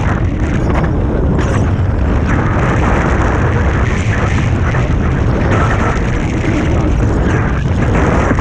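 Strong wind buffeting the microphone in flight under a paraglider: a loud, steady rumbling rush.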